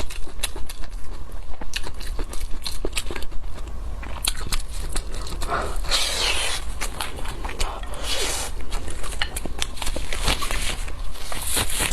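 Close eating sounds of someone chewing and gnawing meat from a spiced sheep's head: many small clicks and crackles, with a few longer tearing or scraping noises in the middle and near the end.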